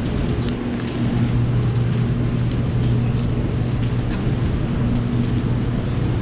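Rain falling, with scattered drops ticking close by over a steady low hum.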